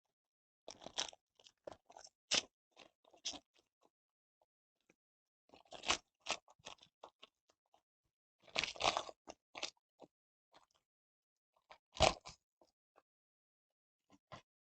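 Trading-card pack wrapper crinkling and tearing, and cards being handled, in several short bursts of crackling with pauses between them.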